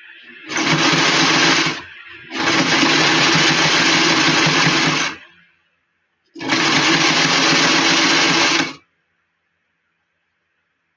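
Electric sewing machine stitching in three runs: a short one of about a second, a longer one of about three seconds, then about two seconds more, each starting and stopping abruptly.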